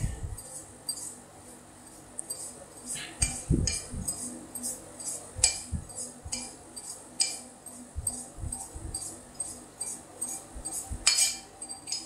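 Irregular light clicks, taps and rattles of coffee beans and grinder parts being handled during cleaning, with a few dull knocks.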